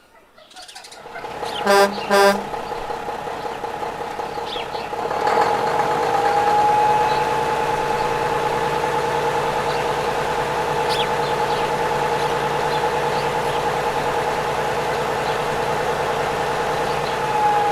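Two short horn toots close together, then a steady humming drone with a slight warble.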